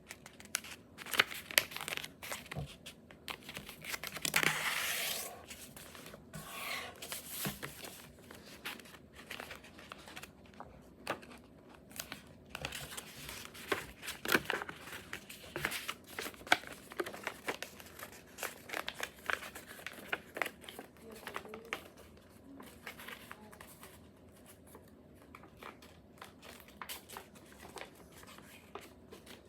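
A sheet of printer paper being folded into a paper airplane: crinkling and rustling with short sharp crackles as creases are pressed in, and a louder rustle about four seconds in.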